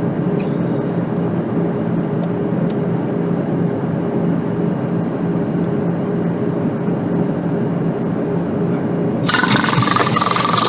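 Steady drone of an airliner cabin, a constant rushing noise with a low hum under it. About nine seconds in, a louder rushing noise suddenly breaks in over it.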